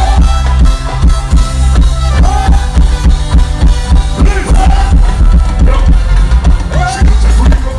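Loud music with a steady drum beat and heavy bass.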